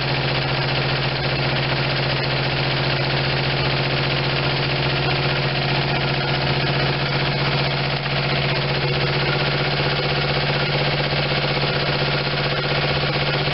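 Geo Metro G10 1.0-litre three-cylinder engine idling steadily and evenly, running on a freshly installed ignition pickup, distributor cap, rotor, spark plug wires and spark plugs.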